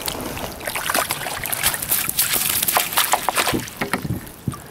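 Irregular splashing and sloshing of water as a hooked small trout thrashes at the surface and a landing net is dipped and lifted beside the kayak.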